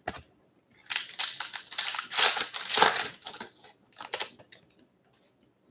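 Foil wrapper of a Stadium Club Chrome baseball card pack crinkling as it is torn open by hand, for about two and a half seconds from a second in, with a shorter crinkle near the end.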